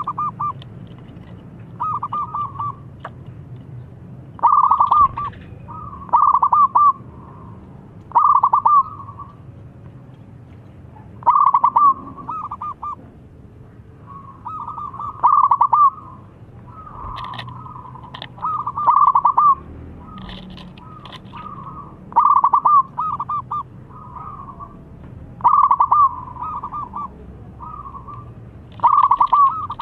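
Zebra dove (perkutut) cooing: phrase after phrase of quick, stuttering coos, each run lasting about a second and repeated every two seconds or so.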